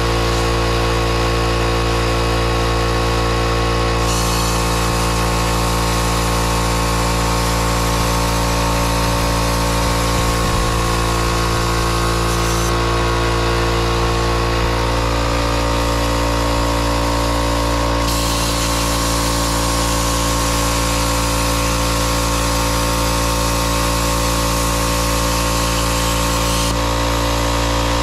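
Air plasma cutter on a CNC table cutting 2 mm stainless steel: a steady loud hiss and hum. The high hiss strengthens for several seconds twice and falls back.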